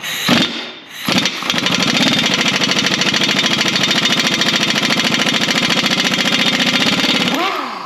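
Impact wrench hammering on a nut welded onto a broken stud: a short burst, then about six seconds of steady, rapid hammering that dies away near the end. The stud does not break loose.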